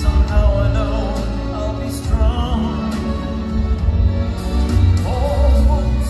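Live male classical-crossover vocal sung into a microphone with wide vibrato, over orchestral accompaniment with a heavy bass, through a concert hall's sound system.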